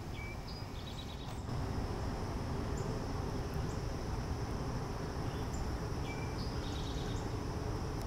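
Outdoor ambience: a steady low rumble under a constant high insect drone, with a small songbird's short song of a few quick high notes heard twice, near the start and again about six seconds in.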